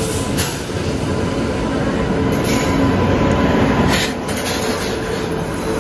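Indian Railways electric locomotive and its passenger coaches rolling past close by as they pull into the platform: a steady rumble of wheels on rail with a few clanks over the rail joints and a faint steady squeal.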